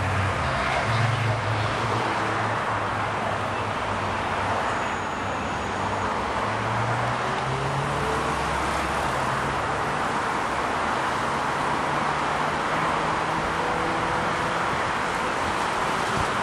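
Steady roar of a small twin-engine business jet's engines on the runway, mixed with road traffic and a low engine hum.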